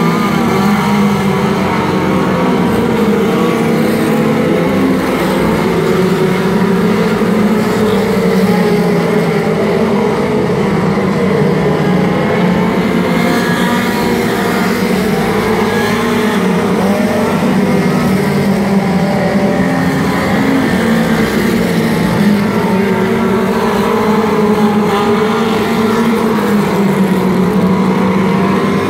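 Several four-cylinder mini stock race cars running together on a dirt oval. Their engines overlap in a continuous loud drone whose pitch rises and falls as the drivers lift and get back on the throttle through the turns.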